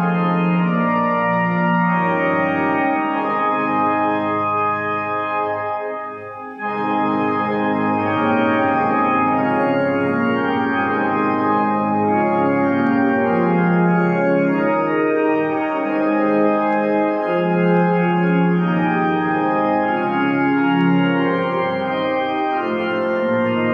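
Digital organ voices in a pipe-organ style, played on a keyboard as slow, held chords that change every second or so. The sound breaks off briefly about six seconds in and comes back abruptly.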